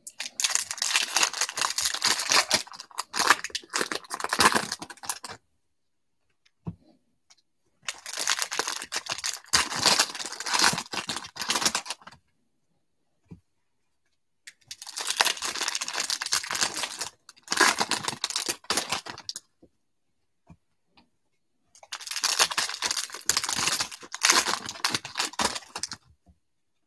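Foil wrappers of Topps Stadium Club baseball card packs crinkling and tearing as the packs are ripped open by hand, in four bursts of several seconds each with short quiet gaps between them.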